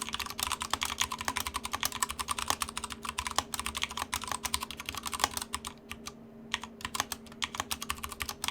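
Fast typing on a Drop ALT mechanical keyboard fitted with Cherry MX Brown tactile switches: a dense, rapid patter of keystrokes that pauses briefly a little past the middle.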